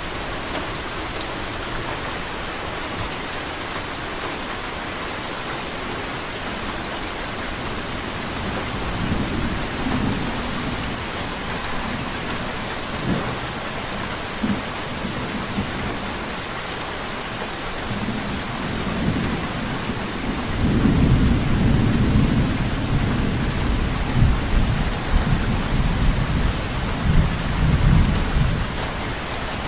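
Steady rainfall hissing evenly. A low rumble swells in briefly about a third of the way through and again for several seconds in the second half, the loudest part.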